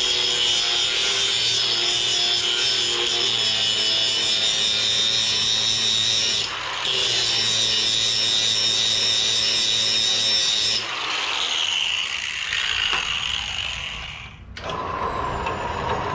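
Cordless Milwaukee M28 angle grinder grinding a flat spot into a cast-iron casting, a steady high whine with a brief let-up about six and a half seconds in. About eleven seconds in the grinder is released and its whine falls away as it spins down.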